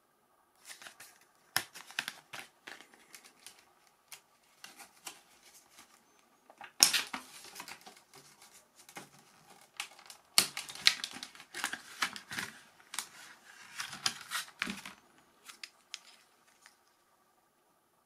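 A clear plastic blister pack being pried and torn open by hand: the plastic crackles and crinkles in irregular bursts with sharp snaps, the loudest about seven and ten seconds in, then stops near the end.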